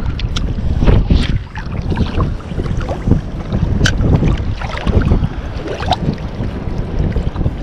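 Choppy sea water sloshing and splashing around a wader standing chest-deep, with wind buffeting the microphone. A few sharp splashes stand out, one of them a crisp click about four seconds in.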